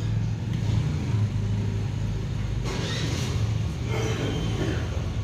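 A steady low mechanical hum, with faint voices in the background about three seconds in.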